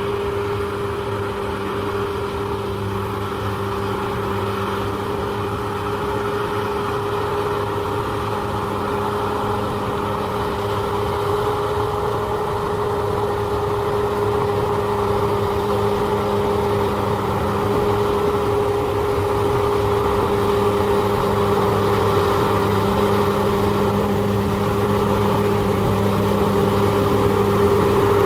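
Bulldozer's diesel engine running steadily with a constant pitched hum, gradually growing louder.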